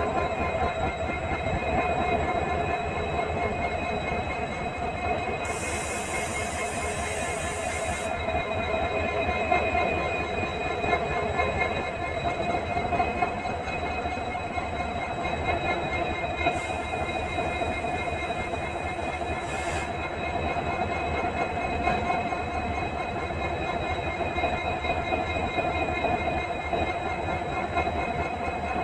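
EMD WDP4D diesel locomotive's two-stroke V16 engine running steadily with a continuous hum and whine. A high-pitched hiss rises over it twice, for a few seconds each time.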